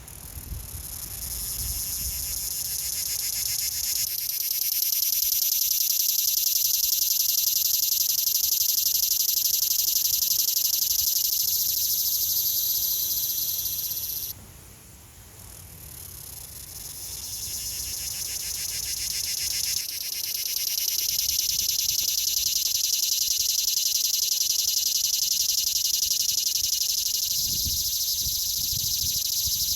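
A cicada's loud, high, rasping buzz. It swells over a few seconds and holds steady, cuts off abruptly about halfway through, then starts again and builds back to full strength.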